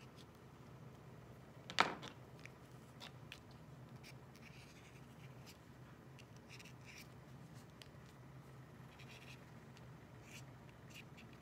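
Faint scratching and tapping of a Posca paint marker's tip on acrylic paper as short strokes are drawn, with one sharp click about two seconds in.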